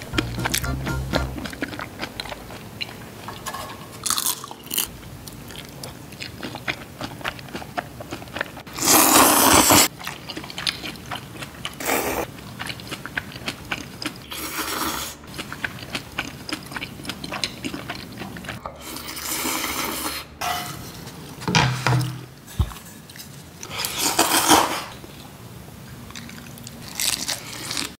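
Ramen noodles being slurped and chewed: about six loud slurps, the biggest about nine seconds in, with quieter chewing between them.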